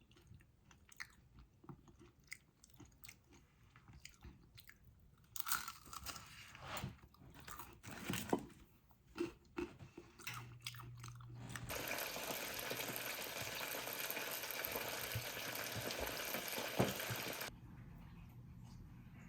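Crunching and chewing of crisp fried turon, with scattered light clicks and a cluster of louder crunches in the middle. A steady hiss then runs for about six seconds and cuts off suddenly.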